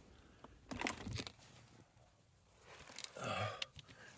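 Faint rustling and handling noises, in two short bursts: one about a second in and a louder one about three seconds in.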